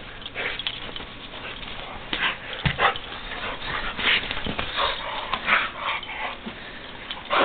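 A pit bull playing rough with a plush dog bed: short, irregular snuffling breaths and the scuffle of the bed being mouthed and shaken, with one thump about two and a half seconds in.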